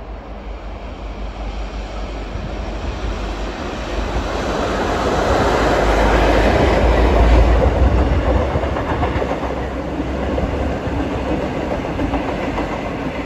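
V/Line N class diesel-electric locomotive, with its EMD 12-645 two-stroke diesel engine, hauling a passenger train past: the low engine rumble builds to its loudest about seven seconds in as the locomotive goes by, then gives way to the steady rolling noise of the carriages' wheels on the rails.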